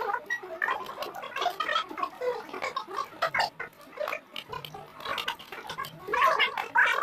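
Close-up wet chewing and mouth smacking of a person eating, irregular clicky mouth noises with a louder stretch near the end.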